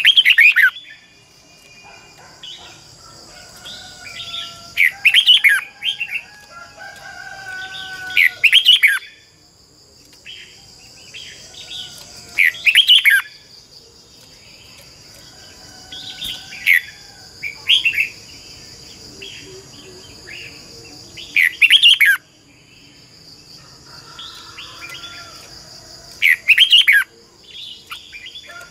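Red-whiskered bulbul singing: short, loud whistled phrases that sweep up and down in pitch, repeated every few seconds and sometimes in quick pairs.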